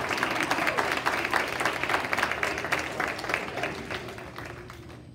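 Audience applauding, many hands clapping at once; the applause fades away over the last couple of seconds.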